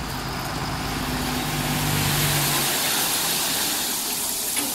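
Crushed stone chips sliding off the raised body of a Tata 3118 tipper truck in a steady rushing pour, over the truck's diesel engine running for the hydraulic hoist; the engine hum drops away nearly three seconds in.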